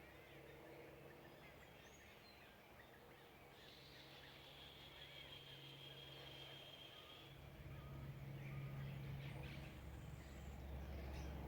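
Faint mixed birdsong: scattered short chirps throughout, with one long, steady, high whistled note about four to seven seconds in. A steady low hum sits underneath and grows louder in the second half.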